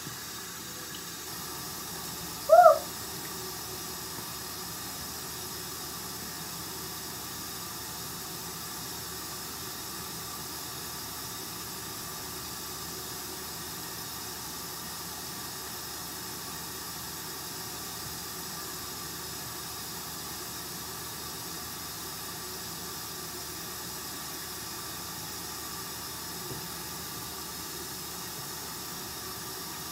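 Steady low hiss of room noise, broken once, about two and a half seconds in, by a short hooted voice sound that rises and falls in pitch.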